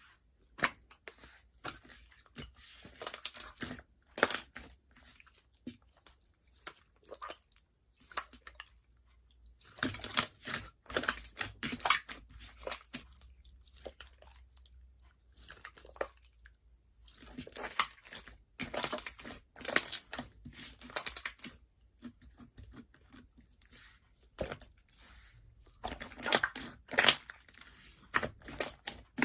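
Slime being squeezed and stretched by hand, giving bursts of crackling and popping every several seconds, with quieter squishing in between.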